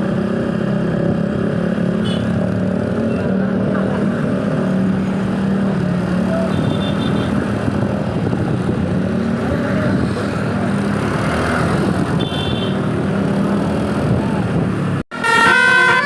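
Steady road traffic with vehicle engines running. Near the end, after a split-second dropout, a bus's multi-tone telolet (basuri) horn starts up loudly, playing a stepped melody of several notes.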